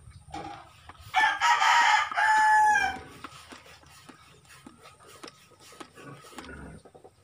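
A rooster crows once, starting about a second in and lasting about two seconds, dropping in pitch at the end. Faint light clicks come before and after.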